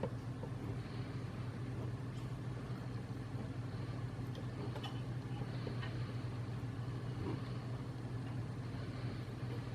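A steady low hum, with a few faint light clicks now and then.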